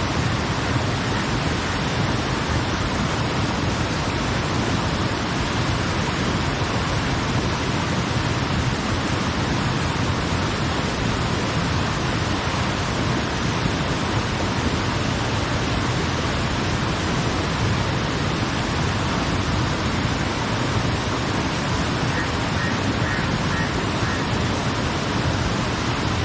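Small waterfall and stream cascading over rock slabs: a steady, loud rushing of water.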